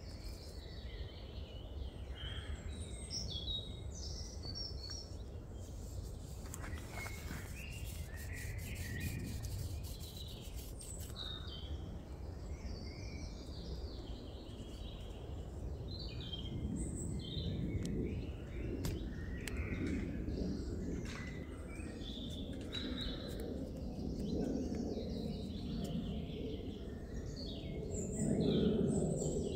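Small birds chirping and calling in short phrases throughout, over a low steady rumble, with a short run of faint clicks about seven seconds in. Soft rustling from paracord being handled comes in about halfway and is loudest near the end.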